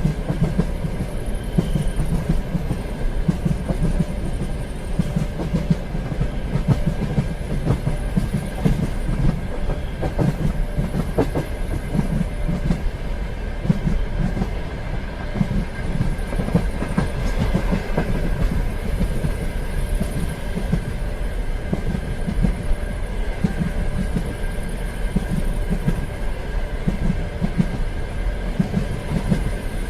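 Train running along the track: a steady rumble with the rhythmic clickety-clack of wheels over rail joints, and a faint steady whine throughout.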